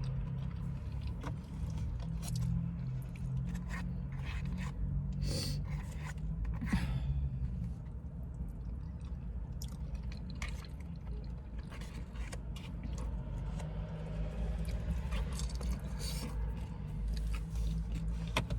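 Eating sounds: chewing and a utensil scraping and clicking against a takeout poutine container, over a steady low hum.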